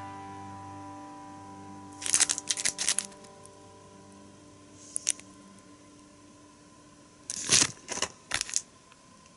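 Clear plastic card sleeves crinkling as collector cards are handled and turned over: a cluster of short rustles about two seconds in, a single one about five seconds in, and another cluster near the end. A held background-music chord fades out under them.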